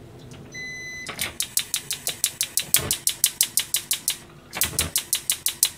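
Gas hob's burner being lit: a short electronic beep, then the spark igniter clicking rapidly, about six clicks a second. The clicks come in two runs with a brief break between them.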